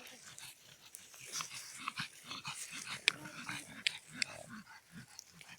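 Small dogs, pugs and a chihuahua, making irregular short breathing and grunting noises close to the microphone, with scattered sharp clicks.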